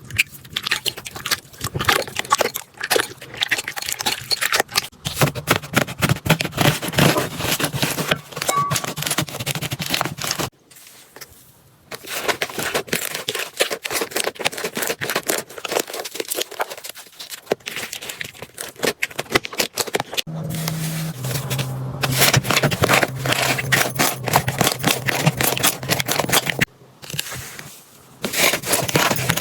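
Slime being squeezed and worked by hand, a dense run of wet crackling and popping clicks, broken by two short pauses.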